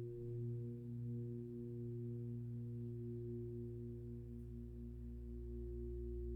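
A gong's sustained resonant hum: several steady ringing tones that pulse slowly against each other, with no fresh strike, while a deep low hum swells near the end.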